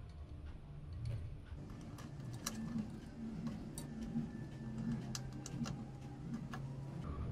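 Irregular light clicks and taps, a few louder ones in the middle, from hands handling cables and plastic connectors inside a PC case, over a low steady hum.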